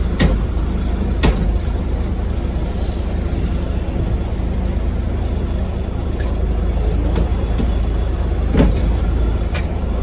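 Old truck's engine running steadily, heard from inside the cab. Sharp knocks sound twice near the start, about a second apart, and once more near the end.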